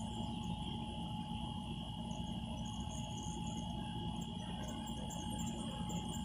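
Steady background hum with two constant whining tones, one middling and one high, and no distinct event.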